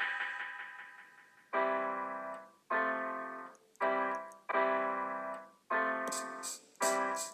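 Keyboard playing piano-like chords, each held for about a second and then cut off, one after another in a steady pulse. At the start, the ringing tail of a louder hit dies away. Near the end, a fast, even, high-pitched ticking joins the chords.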